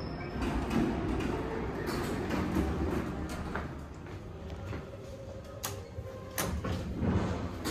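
Otis Elevonic 401 elevator doors sliding, over a steady background noise. Sharp clicks come about five and six seconds in as the car's floor buttons are pressed.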